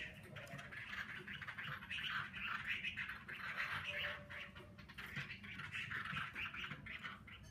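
A caged Chinese hwamei singing a continuous, rapid, choppy warbling song, with a few light clicks as it hops between perches.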